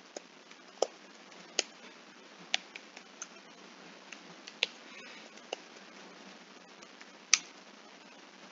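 Computer keyboard keystrokes while an email address is typed: scattered, irregular clicks over a low background hiss, with one louder click near the end.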